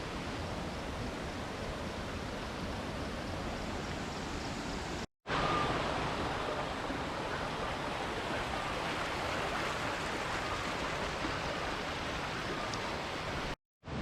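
Steady rushing of the Kali Gandaki river, running high and swollen with monsoon rain, broken by two short silent gaps, about five seconds in and near the end.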